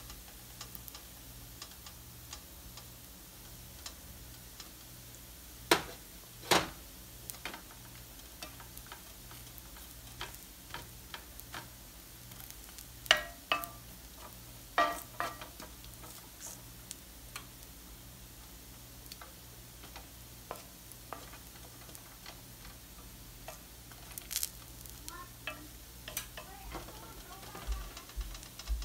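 Instant noodles frying gently in a nonstick pan, a soft sizzle, with a wooden spoon knocking and scraping against the pan: a few sharp knocks about six seconds in and again around thirteen to fifteen seconds, lighter clicks in between. A steady low pulsing hum runs underneath.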